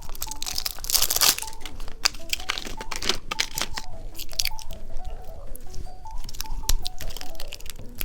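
Plastic candy packaging crinkling and tearing as it is handled and opened, a rapid irregular run of sharp crackles.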